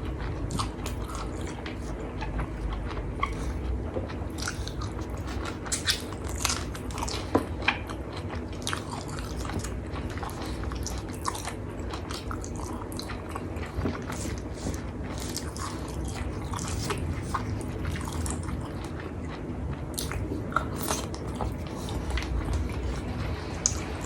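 A person chewing and biting mouthfuls of a nasi Padang meal, with many short sharp mouth clicks scattered throughout.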